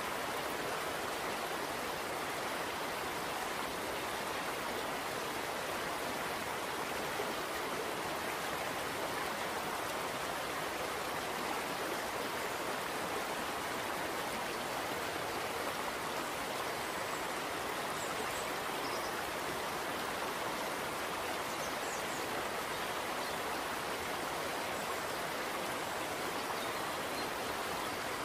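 Thin stream of liquid trickling steadily into a glass beaker of strawberry extract, during the precipitation step of a strawberry DNA extraction.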